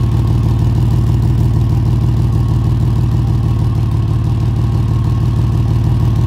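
Exhaust leak just ahead of the flex pipe on a 2004 Ford Ranger, heard close up with the engine idling. Unmuffled exhaust escapes at the joint as a steady, loud puttering.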